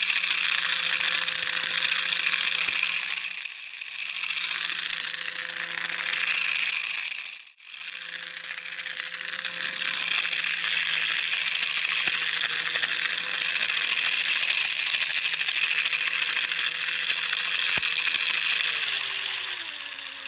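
Battery-powered toy train's small electric motor and plastic gearing running, a steady whirring rattle as the locomotive pulls its carriages along plastic track. It drops out sharply about seven and a half seconds in, then resumes, and near the end its hum slides down in pitch as it fades.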